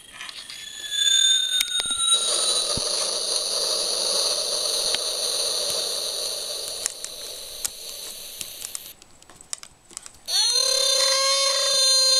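Hacked electronic sound-effects toy playing its built-in sounds, warped by a 680k-ohm resistor soldered into its circuit. One buzzy electronic effect starts with a gliding pitch and holds until about nine seconds in, and after a short break a second, shrill alarm-like tone starts.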